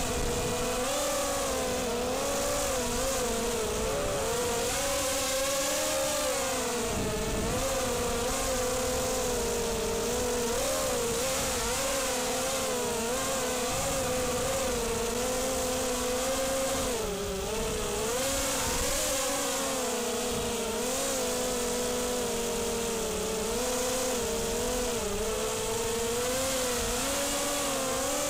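Brushless motors and props of a ZMR250 racing quadcopter whining close up, from its onboard camera, the pitch rising and dipping continually as the throttle changes, over a rough rumble of wind.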